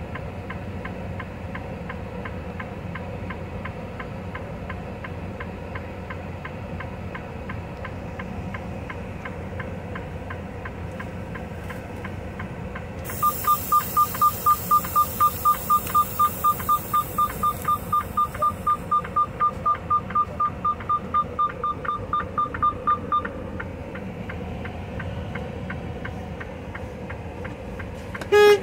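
Diesel truck engine idling with a steady ticking. About thirteen seconds in, a hiss of air starts, and with it comes a rapid high beeping at one pitch, four or five beeps a second, that stops about ten seconds later. A short loud blast with a falling pitch comes just before the end.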